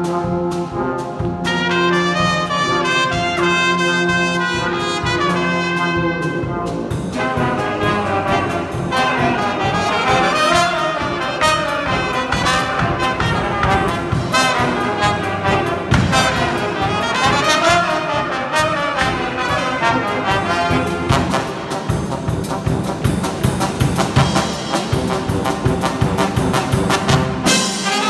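Street band of saxophones, trumpets, trombones and sousaphone playing a lively tune together, with a drum beat coming in about seven seconds in.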